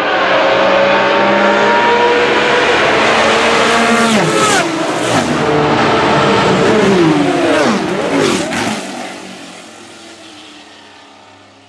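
Several Group C sports-prototype race cars running flat out, their engines at high, steady revs. They then drop sharply in pitch twice, with short sharp cracks, as the cars brake and downshift. The engine sound then fades away.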